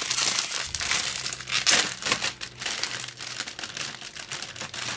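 Plastic bags around model-kit runners crinkling and rustling as hands rummage through them in the kit box, a continuous dense crackle.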